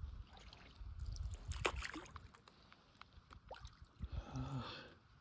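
Kayak paddle strokes with water sloshing and dripping around the boat, and low gusts of wind on the microphone.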